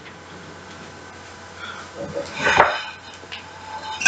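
A frying pan clattering and scraping as it is handled at the stovetop, with one loud stroke about two and a half seconds in and a few lighter knocks after.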